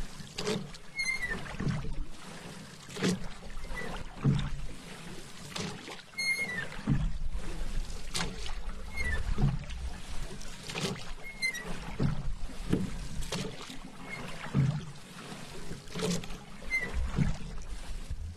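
Paddle strokes through calm water, a dip and swish about every one to two seconds, with water lapping between strokes.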